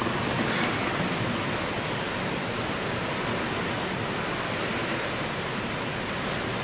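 Steady hiss of an indoor swimming-pool hall, the even roar of the natatorium's air and water systems with no distinct events.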